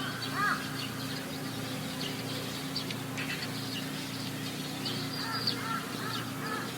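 Birds calling: short arched calls, one near the start and a quick series about five seconds in, with thin high chirps scattered between, over a steady low hum.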